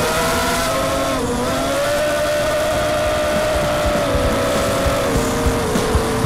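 Brushless motors (Cobra 2204 1960kv) and Gemfan 5030 propellers of a ZMR250 FPV racing quadcopter whining in flight, heard from its onboard Mobius camera. The pitch shifts with the throttle, dipping briefly about a second in and dropping lower near the end, over low rumbling wind buffeting on the camera's microphone.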